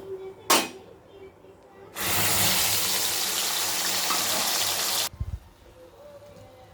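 Kitchen tap running for about three seconds, switched on and off abruptly, after a single click near the start.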